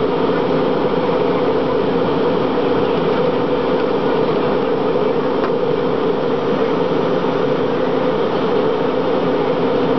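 Steady jet airliner cabin noise: the even rush of engines and airflow with a low, constant hum, unchanging throughout.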